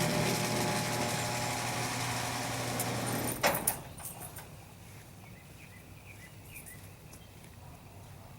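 A steady machine hum that stops with a sharp clunk about three and a half seconds in, followed by low background with a few faint chirps.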